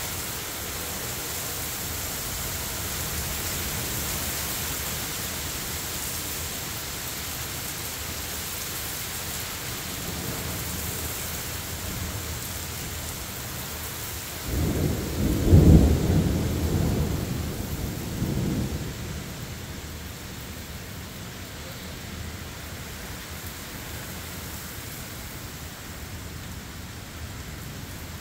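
Steady rain falling hard during a thunderstorm. About halfway through, a loud clap of thunder breaks in and rumbles for about four seconds before fading. The rain is a little quieter afterwards.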